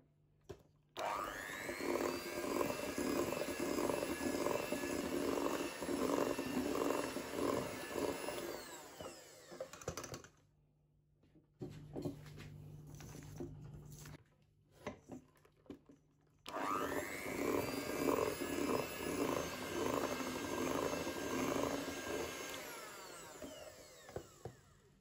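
Kenwood Chefette electric hand mixer beating batter in a stainless steel bowl, run in two bursts. Each starts with a rising whine and winds down as it stops: the first runs about a second in until about ten seconds, then there is a pause with a few clicks, and the second runs from about sixteen seconds until it winds down near the end.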